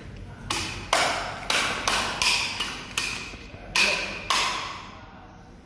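About nine sharp taps at roughly two a second, some with a short metallic ring, as the AC drain pipe and its fixings are tapped into place in the concrete floor chase; then the tapping stops.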